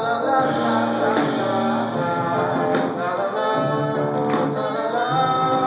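Live band playing, with a trumpet line over electric bass, keyboard and drums, and a drum or cymbal hit about every second and a half.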